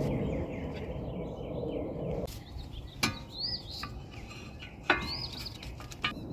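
A low, steady outdoor rumble that cuts off about two seconds in, then two sharp clicks with birds chirping faintly after each.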